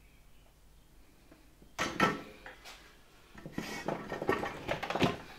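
Small tools and parts handled on a workbench during electrical wiring: a sharp knock about two seconds in, then a run of light clicks and rattles.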